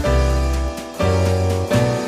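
Background music: piano-led instrumental with a steady bass line, chords changing about twice a second.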